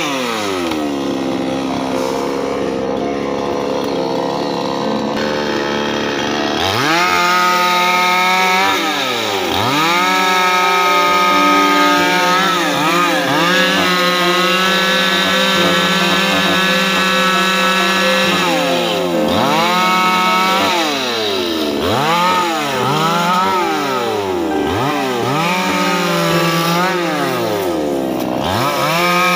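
Two-stroke petrol chainsaw running steadily at low speed for the first several seconds, then revved up about seven seconds in. It then cuts into a felled tree trunk, its engine note repeatedly dropping and climbing back as the chain loads up in the wood and frees again.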